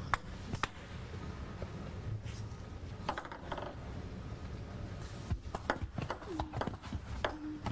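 Table tennis ball clicking off bats and table during a rally in a hall. There are single ticks early on and a quicker run of hits about five to six seconds in.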